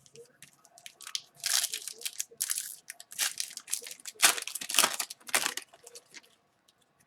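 Wrapper of an Upper Deck Series 1 hockey card pack being torn open and crinkled, in crackling bursts from about a second and a half in until near the end.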